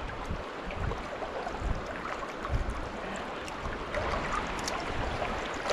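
Stream water flowing and rippling as a steady rush, with occasional low rumbles on the microphone.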